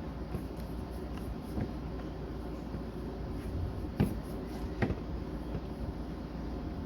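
Paintbrush brushing acrylic paint onto a painting surface, a soft scratchy rubbing, with two light knocks about four and five seconds in over a steady low room hum.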